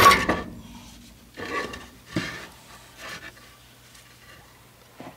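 Hammer blows on a rusted exhaust tailpipe joint, trying to knock a stuck tailpipe off its sleeve: one sharp metallic strike that rings briefly, then a few weaker knocks and scrapes about a second and a half, two and three seconds in.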